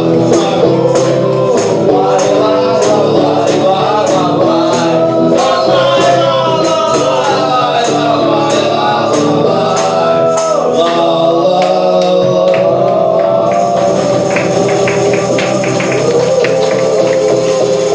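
Acoustic band playing a song, with a tambourine jingling on the beat and voices singing.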